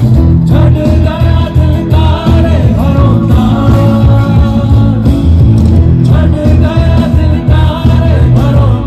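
Loud live band music with heavy bass and a singing voice carrying the melody.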